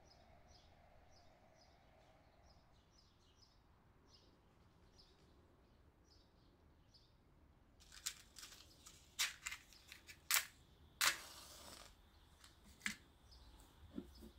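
Birds chirping faintly. Then a match is struck on a matchbox: a few short scrapes from about eight seconds in, then a longer scraping flare about a second long as it catches.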